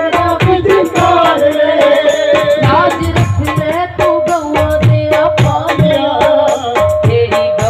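Live devotional bhajan music: a woman singing into a microphone, with electronic keyboard and hand-drum accompaniment keeping a steady beat.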